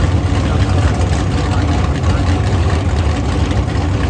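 Super Gas drag car engine idling with a loud, steady, rough low rumble.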